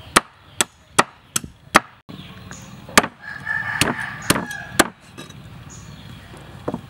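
Knife chopping a catfish on a wooden cutting board: five quick sharp chops in the first two seconds, then a few more from about three seconds in. A rooster crows in the background in the middle, over the later chops.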